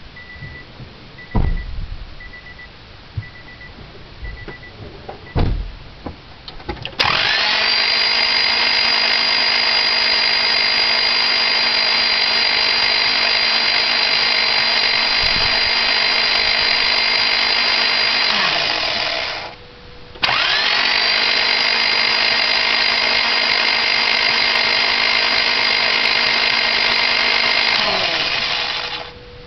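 Honda Civic's starter motor cranking the engine twice, about eleven seconds and then eight seconds, a steady whine that spins up and winds down each time, without the engine firing: the engine has no compression. Before it, a chime beeps several times and there are a couple of knocks.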